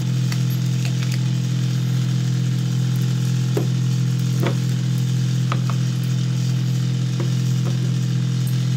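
A steady low electrical hum with a buzzing row of overtones, with a few faint short clicks.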